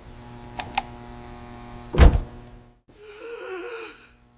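Computer keyboard keys clicking twice, then a heavy thump about two seconds in, followed by a man's short despairing groan, over a steady electrical hum.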